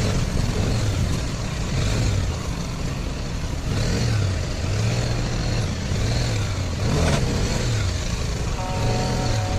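BMW G 310 R's single-cylinder engine and exhaust running in second gear at a crawl, its pitch rising and falling with small throttle openings about once a second.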